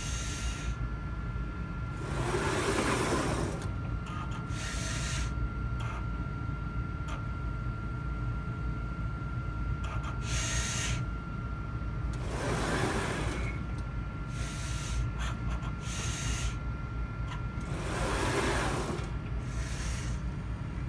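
Hamilton Microlab STAR automated liquid handler running with a steady hum and a faint high whine. Its pipetting arm's motors whir in short spells of about a second, eight or so times, as the pipetting channels move during a liquid transfer.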